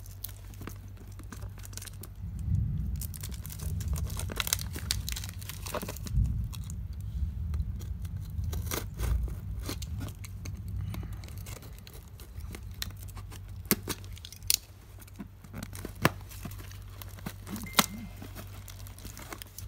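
Plastic wrapping and packing tape on a cardboard box crinkling and crackling as hands turn it and pick at the wrap, with scattered sharp crackles and low handling bumps, busiest in the first half.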